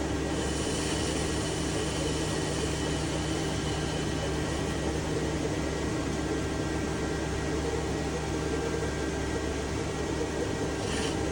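Metal lathe running with a steady machine hum and hiss, its level unchanging. A brighter hiss sits over the first few seconds, and a brief hiss comes near the end.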